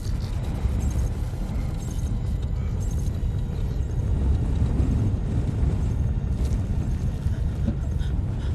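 A deep, steady rumble from the episode's soundtrack.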